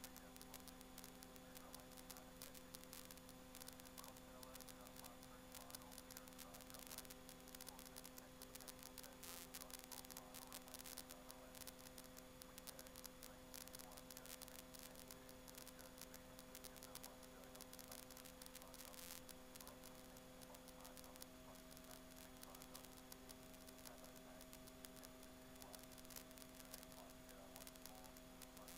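Near silence: a faint steady hum with a few steady tones under light hiss.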